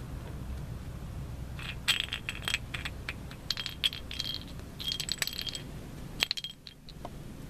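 Small bell jingling and rattling inside a clear plastic cat toy ball as kittens bat it around on concrete. It comes in several quick spurts of clicks and rings starting about two seconds in, with one last jingle just after six seconds.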